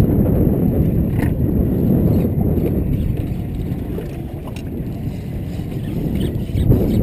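Low, rumbling noise of a fishing boat under way at sea, dipping slightly about four seconds in and building again near the end.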